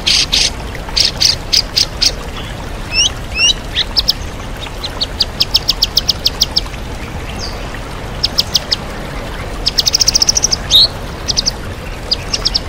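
White-rumped shama (murai batu) singing in rapid runs of sharp, repeated high notes and short trills, typical of its mimicked fill-in phrases. A waterfall's steady rushing runs underneath.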